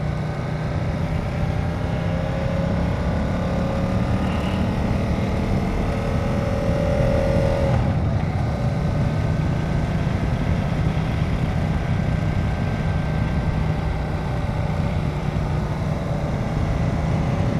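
Ducati Diavel's V-twin engine running under way, heard through a helmet-mounted camera with wind noise. Its pitch climbs steadily as the bike accelerates for several seconds, eases off about eight seconds in, then holds steady.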